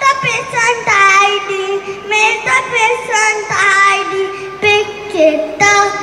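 A young child singing a song into a microphone, one voice moving between held notes.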